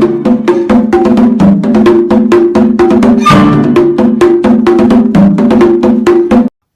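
Background music with a fast percussive beat of about five strikes a second over a repeating low melody, cutting off suddenly near the end.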